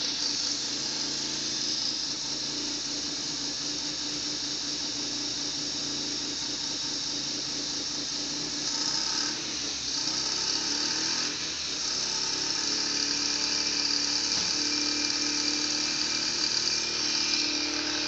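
Mazda FD3S RX-7's twin-rotor 13B-REW rotary engine running, a steady buzz with a high-pitched whine over it, a little louder in the second half. The owner reports a misfire and suspects broken seals.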